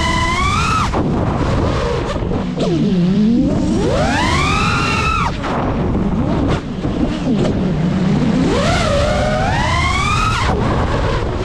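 Brushless motors of a 5-inch FPV quadcopter whining with the throttle: the pitch falls away, then sweeps up high in long surges about every four seconds and drops off sharply as the throttle is cut in dives and flips. A steady low rumble runs underneath.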